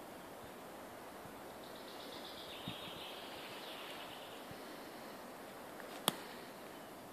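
Pine-forest ambience: a steady faint hiss with a high, fast trilling call from about one and a half to four and a half seconds in, a soft thud from a footstep, and a single sharp click about six seconds in that is the loudest sound.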